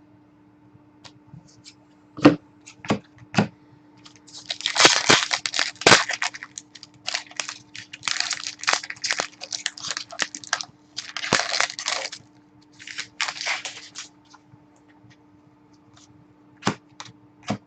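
Trading card packaging being handled: a few sharp clicks, then several seconds of crinkling and tearing in bursts as a hockey card pack is opened and the cards are sorted, with two more clicks near the end.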